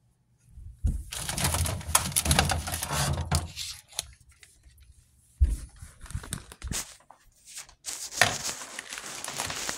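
Rustling, crinkling handling noise with many small clicks, in two long stretches, and a single sharp knock about five and a half seconds in.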